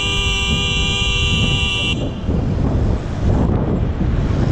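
Loud Bicycle car horn on a bicycle sounding one long blast of several pitches at once, cutting off about two seconds in, over steady traffic noise.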